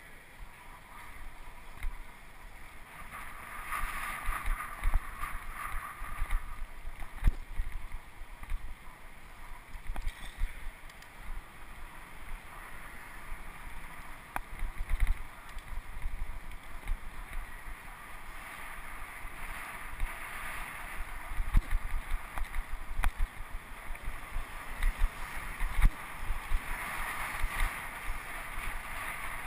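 Wind buffeting the microphone of a bicycle-mounted camera as the bike rides along, with steady road noise and irregular low thumps throughout. The road noise swells twice, a few seconds in and again near the end.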